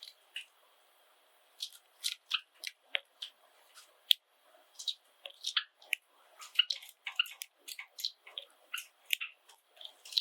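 Pet Java sparrows making short, sharp chip calls and clicks in an irregular patter. It is sparse for the first second and a half, then busy.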